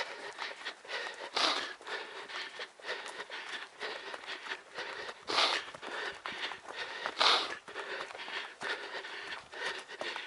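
A trail runner breathing hard, with footfalls crunching on the trail and a few louder breaths standing out.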